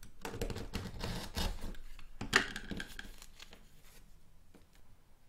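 Rotary cutter blade rolling through layered polyester satin against a ruler on a cutting mat, giving a gritty cutting sound for about two seconds. It is followed by one sharp clack and then soft rustling of the cut satin pieces being handled, which fades out.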